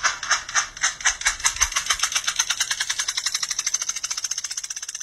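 Cat in a plastic cone collar scratching at its head with a hind paw, the paw beating on the cone in a rapid scratching rhythm that quickens from about four to about eight strokes a second.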